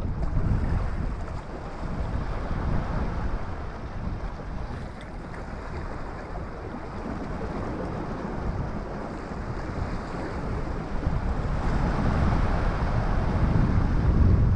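Wind gusting across the microphone in uneven low rumbles, over waves washing against the rock wall below. The gusts grow stronger near the end.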